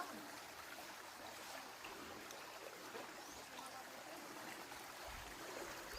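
Faint, even sound of flowing stream water outdoors, with a few faint high chirps over it.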